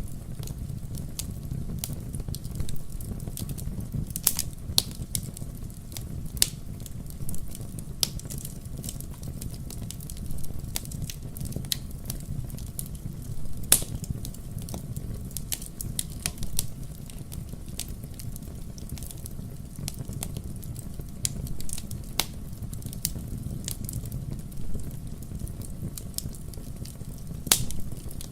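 Fire burning in a fireplace: a low steady rumble with irregular sharp crackles and pops scattered throughout, two of them louder, about halfway and near the end.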